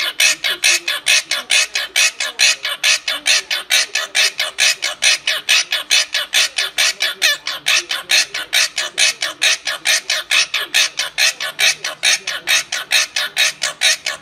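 Blue quaker parrot (monk parakeet) calling in a fast, steady run of short, clucking squawks, about four a second, while bobbing its head.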